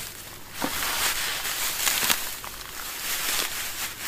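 Dry rice straw rustling and crackling as it is pulled apart and handled, with a few sharper crackles.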